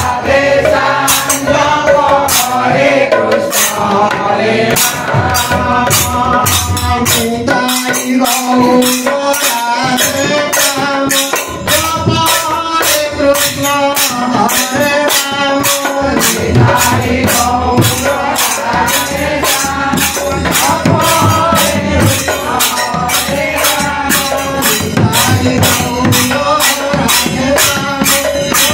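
Devotional group singing by men, accompanied by small brass hand cymbals clashed on a steady, fairly fast beat and a two-headed barrel drum.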